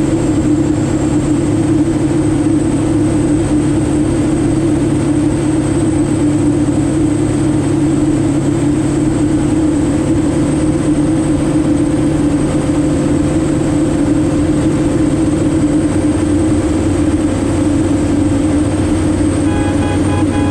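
Kitfox Model 7 Supersport light aircraft's engine and propeller droning steadily, holding an even pitch and level without rising or falling.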